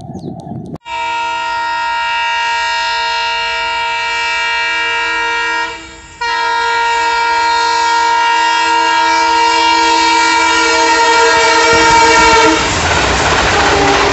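Indian Railways diesel locomotive's air horn sounding a loud, steady multi-note chord. It is broken by a short gap about six seconds in, then held again in a second long blast. Near the end the horn stops and the train rushes past at speed, with the noise of wheels on rail.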